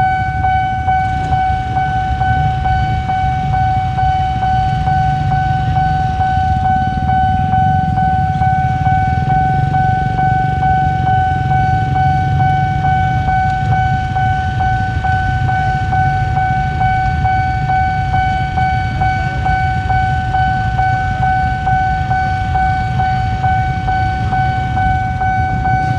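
A level-crossing warning alarm sounds one unbroken high tone throughout. Under it runs a heavy low rumble from a train passing over the crossing.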